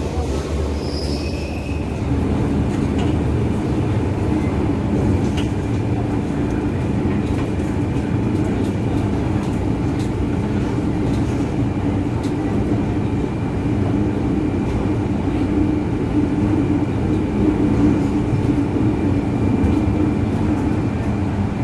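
MTR Kwun Tong Line metro train running, heard from inside the carriage: a steady rumble with a faint, thin motor whine that holds throughout.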